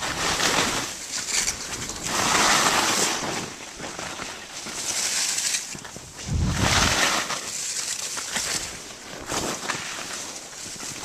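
Skis swishing and scraping over snow through a series of turns, in noisy swells every two or three seconds, with a low rumble about six seconds in.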